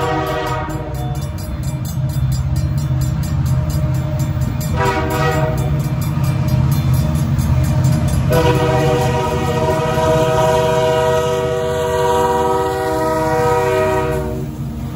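CN freight locomotive horn sounding for the grade crossing: the end of one blast, a short blast about five seconds in, then a long blast held for about six seconds as the train reaches the crossing. The crossing's Safetran hybrid bell dings rapidly behind it over the low rumble of the diesel locomotive, which passes close near the end.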